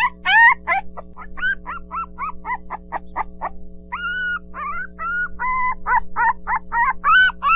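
Puppies squealing and yelping in quick succession, several short high-pitched calls a second, with a couple of longer held whines about four and five and a half seconds in. A steady low hum runs underneath.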